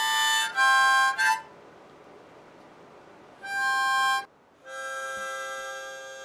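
Harmonica played in slow, held chords: two chords at the start, a pause of about two seconds, then two more, the last one softer and fading away.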